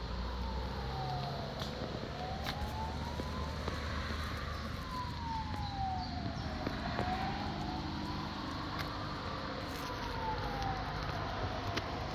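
A siren wailing, its pitch sweeping slowly up and down every few seconds, over a steady low rumble.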